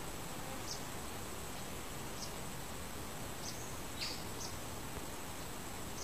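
Forest ambience: a steady, thin, high insect whine over a hiss, with about five short, high chirps at uneven intervals, the loudest about four seconds in.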